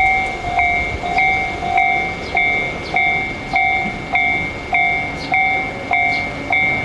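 Japanese level-crossing warning bell sounding its repeated "kan-kan", about 1.7 strikes a second, each strike a two-pitch electronic ding. A train runs past underneath it.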